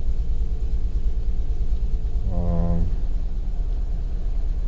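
2011 Jeep Wrangler's 3.8-litre V6 idling with a misfire, a steady low rumble with an uneven pulse; the engine is shaking hard. A short pitched hum comes in about halfway through.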